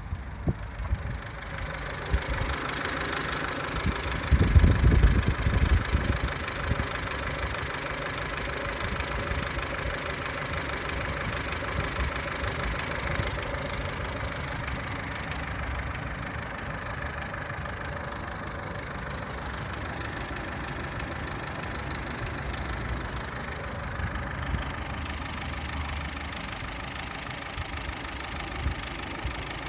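2003 Ford Fusion 1.4 petrol four-cylinder engine idling with a fast light ticking from the belt end of the engine. The owner has ruled out the auxiliary drive belt and the water pump and does not know the cause. A louder low rumble comes briefly about four seconds in.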